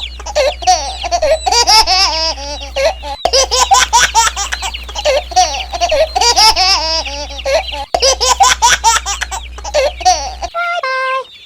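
High-pitched giggling laughter that breaks off abruptly twice and starts again, like a looped laughing clip. A short stepped tone sounds near the end.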